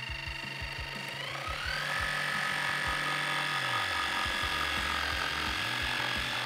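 Cordless jigsaw cutting through a wooden foundation timber. Its motor whine rises in pitch a little over a second in, then holds steady.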